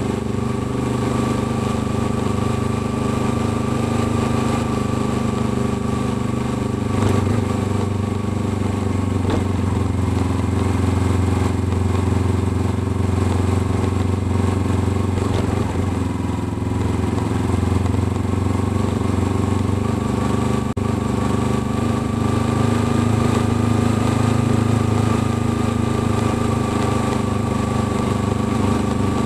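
Kawasaki Ninja 300's parallel-twin engine running steadily as the motorcycle is ridden. Its note dips slightly around the middle and rises again later.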